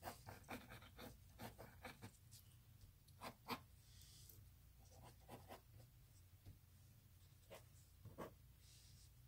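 Pencil sketching on paper: faint, short scratchy strokes coming irregularly, one after another.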